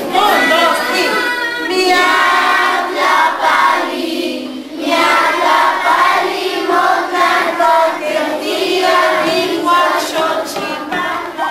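Schoolchildren singing a Nahuatl song together, with a short break about four and a half seconds in.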